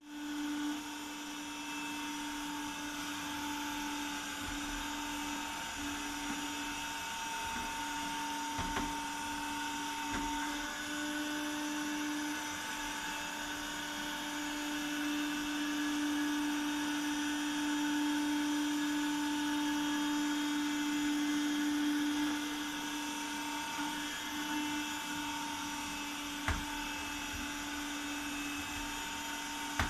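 Cop Rose window-cleaning robot's suction fan motor running with a steady whine as it crawls across the glass, with a few short knocks as it moves.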